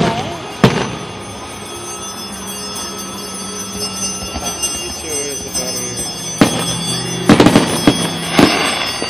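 Aerial fireworks shells bursting overhead: a single bang near the start, then after a few quieter seconds a bang followed by a quick run of bangs and crackles in the last three seconds.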